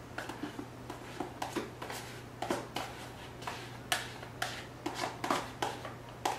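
A spoon scraping whipped topping out of a plastic tub and knocking against the tub and a stainless steel mixing bowl: a run of irregular light clicks and knocks, a few a second.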